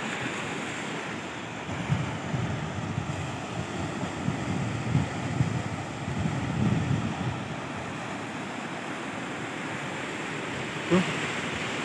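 Ocean surf washing onto a sandy beach in a steady hiss, with wind gusting on the microphone in low rumbles, heaviest through the first half.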